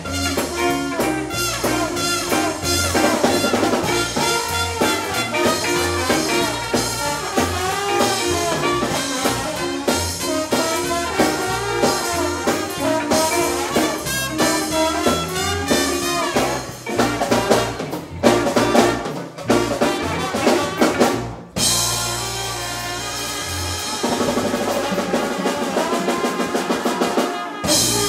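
Live horn-led R&B band, trumpet and trombone over drum kit, electric guitar, bass and keyboard, playing an instrumental passage. About 17 s in it breaks into short accented hits with drum fills, then holds one long final chord under a cymbal wash that cuts off near the end.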